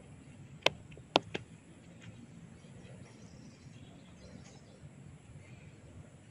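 Sharp cracks of hair cracking, a gripped lock of hair tugged so that it snaps: two loud cracks about half a second apart within the first second and a half, followed closely by a softer third, over faint outdoor background noise.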